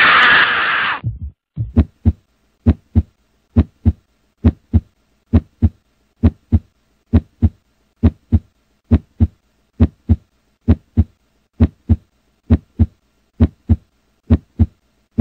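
A loud scream for about the first second, then a heartbeat sound effect: steady paired thumps, lub-dub, a little under once a second.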